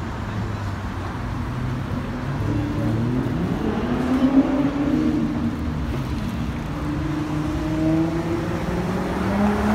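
Motor vehicle engine running over road noise, its pitch rising and falling as it speeds up and slows.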